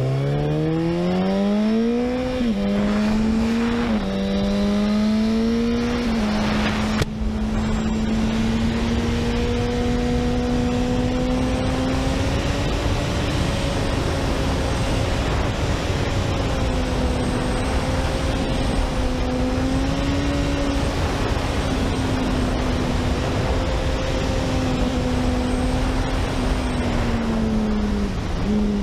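Honda CBR sportbike's inline-four engine accelerating hard through the gears: its note climbs and drops at three quick upshifts in the first six seconds, then holds a steady high-rpm drone with small rises and falls, easing off briefly near the end. Heavy wind rush on the microphone throughout.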